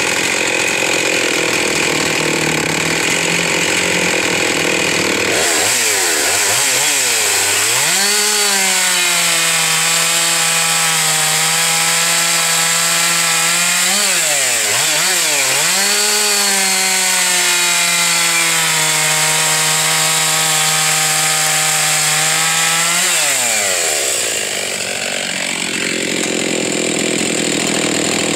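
Husqvarna 372 XP two-stroke chainsaw with a big block kit running at full throttle while cutting a log. The engine note holds high and steady, dips sharply a few times as it loads down, then falls away near the end.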